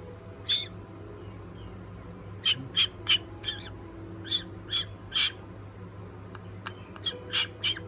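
Pet parrot giving short, clipped calls, about a dozen in loose clusters.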